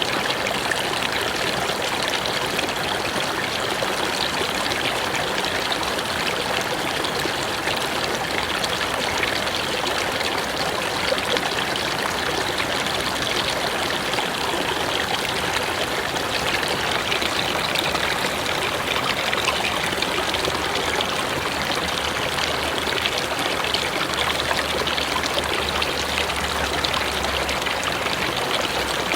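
Mountain river flowing steadily, an even, continuous water noise with no breaks.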